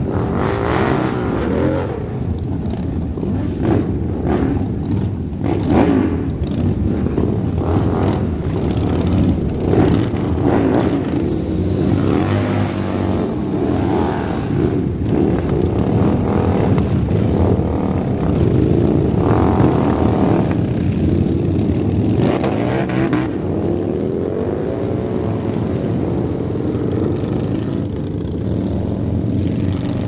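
Several motorcycles running together as a group, their engines revving up and down at overlapping pitches.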